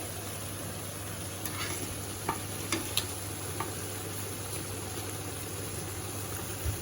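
Soaked rice and chicken frying in a pot with a steady sizzle, stirred with a spatula that scrapes and clicks against the pot a few times in the first half.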